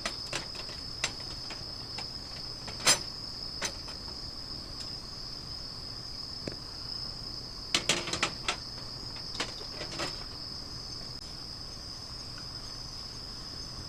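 Crickets chirping steadily, with scattered sharp snaps and clicks, the loudest about three seconds in and a cluster around eight seconds in.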